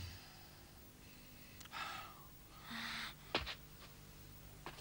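Faint breathing: two short breaths about two and three seconds in, then a sharp click, over a quiet steady hum.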